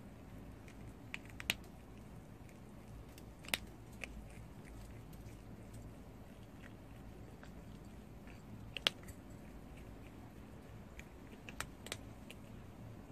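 Prairie dog biting and chewing a green food pellet: irregular sharp crunches, a few much louder than the rest.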